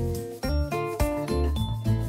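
Background music: plucked notes over a bass line, with a steady rhythm.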